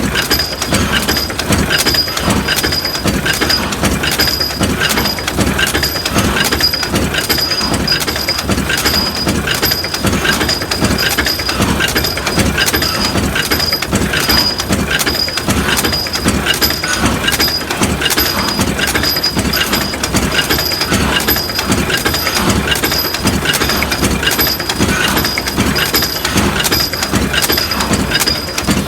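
Forging machinery running with a steady, rapid rhythmic clatter of repeated mechanical strokes, with a pulsing high ring over it.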